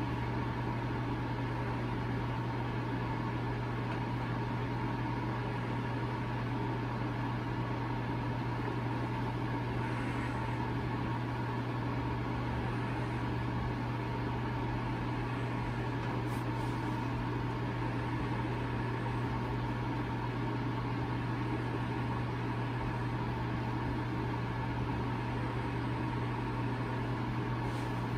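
Steady, unchanging mechanical hum with a low drone and a fainter higher tone over a soft hiss.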